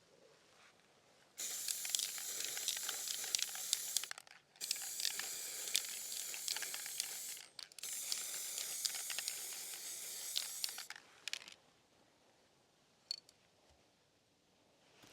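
Aerosol spray paint can spraying in three bursts of about three seconds each, a hiss with a fine spattering crackle, with short breaks between them. A single small click comes near the end.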